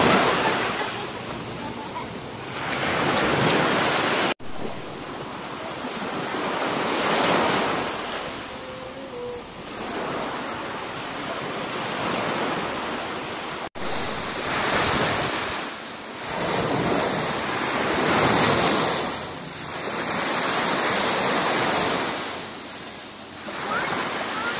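Wind and surf: a rushing noise that swells and fades every few seconds, with wind buffeting the microphone. It cuts out briefly twice.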